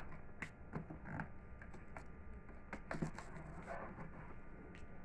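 Hands working a cardboard printer box: scattered taps, scrapes and rustles as the taped top is opened and a flap is lifted, with a sharper knock at the very end.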